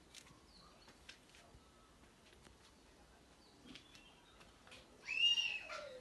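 Canaries in an aviary giving faint, scattered chirps. Near the end comes one louder, drawn-out call that arches high and then slides down in pitch.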